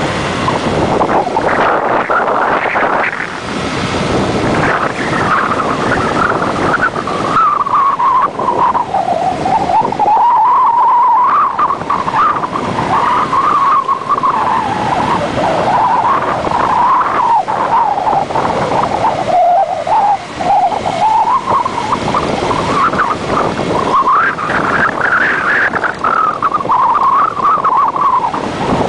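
Wind rushing over the microphone of a moving vehicle, with the vehicle's engine note rising and falling smoothly in pitch as it speeds up and slows along the road.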